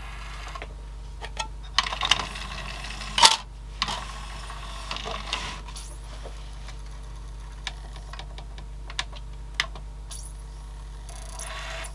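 Sony CD player's KSS-240 mechanism loading a disc: a cluster of clicks and knocks as the disc is seated and clamped, the loudest about three seconds in. Then scattered single ticks and a faint whir as the disc spins up and the laser seeks before play.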